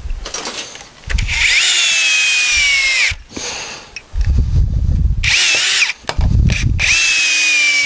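Cordless drill driving screws into cedar framing boards in three runs, the first and longest about a second in. Each run is a high motor whine that sags in pitch just before it stops, with a low rumble between the second and third.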